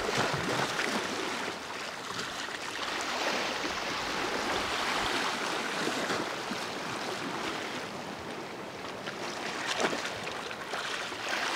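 Sea water washing steadily against shore rocks, with a slightly louder surge about ten seconds in.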